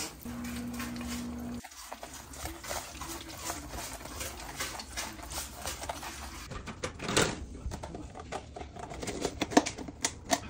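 A steady low hum with a held tone for the first second and a half, cut off suddenly. Then an irregular run of soft crunchy clicks and rustles as a boudin ball is rolled by hand through a tray of crushed red crumb coating.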